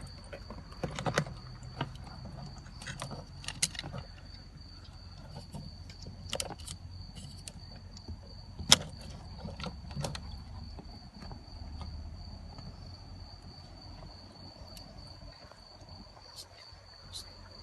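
Sporadic metallic clicks and knocks of tools and parts being handled during car repair work, the sharpest about nine seconds in. A steady high-pitched tone runs underneath.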